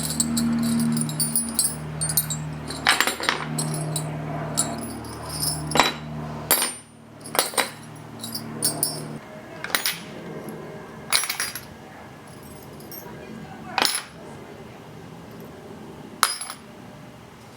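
A series of sharp clicks and knocks from hard objects being handled and set down, with a low steady hum underneath that cuts off suddenly about six and a half seconds in.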